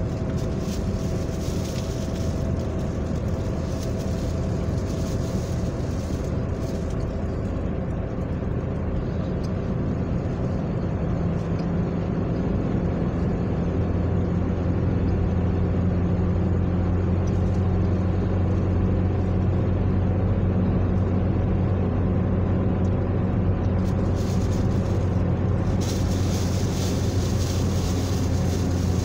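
Car engine hum and tyre-and-road noise heard inside the cabin while driving steadily along a road. The low engine hum grows a little louder about halfway through.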